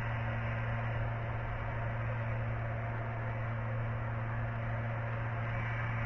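Steady low hum with a constant hiss of background noise and no distinct events.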